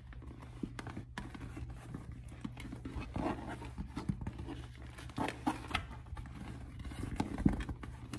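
An empty leather tote bag being handled and turned over, giving irregular rustles, creaks and light knocks of the leather and its straps, with a sharper knock near the end.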